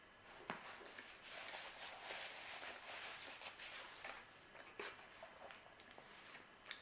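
Crackly rustling of a paper napkin being handled, with a sharp click about half a second in and scattered small clicks and ticks after it.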